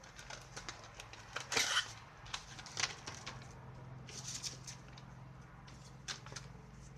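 Light clicks and clinks of small hard parts being handled, with one short louder scraping rush about a second and a half in, over a steady low hum.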